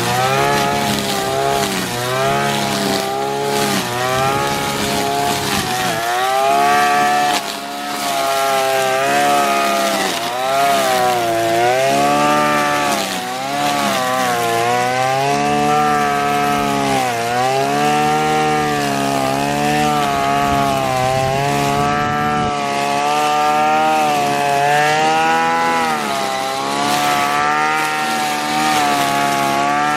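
Small two-stroke brush cutter engine running at high speed, its pitch repeatedly dipping and recovering as the engine loads up cutting grass and then frees again.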